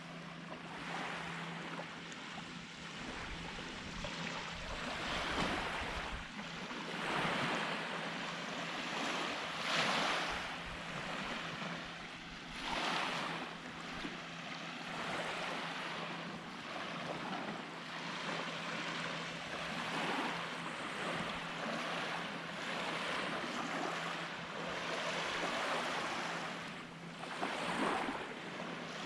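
Surf on a beach: small waves breaking and washing up the sand, swelling louder every few seconds.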